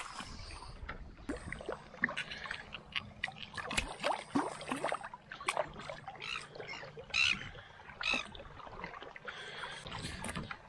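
Shallow seawater splashing and sloshing as people wade through it and oysters are lifted out dripping, in short irregular splashes.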